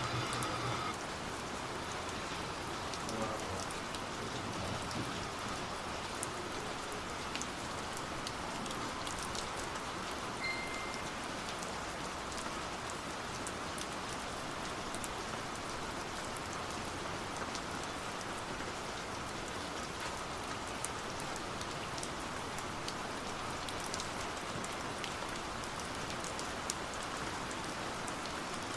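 Steady rain falling: an even hiss with scattered faint ticks.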